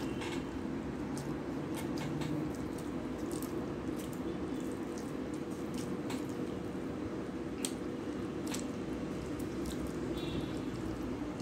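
Eating rice by hand: wet chewing and mouth clicks, with fingers squishing and mixing rice on a steel plate, as many scattered soft clicks over a steady low background hum.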